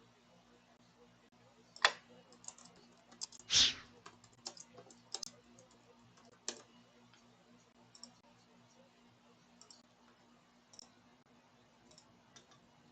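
Faint, scattered computer keyboard and mouse clicks, irregularly spaced, with a brief louder rush of noise about three and a half seconds in.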